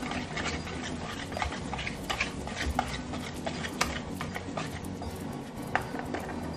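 Wire whisk scraping and clicking against a plastic mixing bowl as it stirs thick masarepa dough, in quick, irregular strokes.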